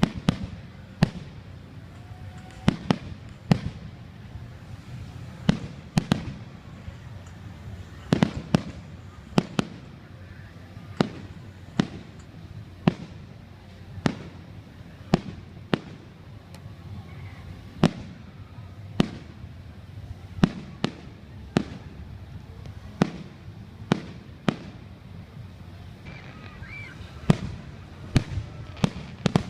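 Aerial fireworks shells bursting overhead in an irregular, unbroken run of sharp booms, about one or two a second, each with a low rumbling tail.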